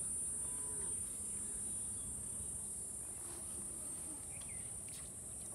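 Steady, high-pitched chorus of insects, crickets or cicadas, droning without a break.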